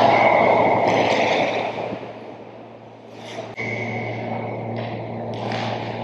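Spectators in an ice rink cheering just after a goal, the cheer fading away over about two seconds. A steady low hum runs underneath, and skates scrape on the ice later on.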